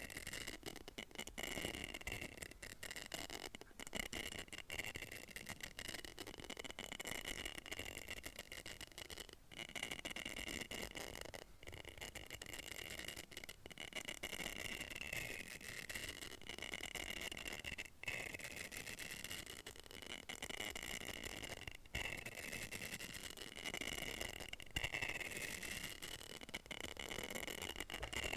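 Close-up scratching, rattling and clicking on a small hollow capsule, in rapid irregular strokes. Under them runs a steady high tone that wavers slightly in pitch.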